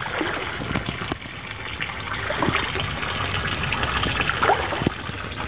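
Water of a small stream trickling steadily, with scattered small clicks in the flow.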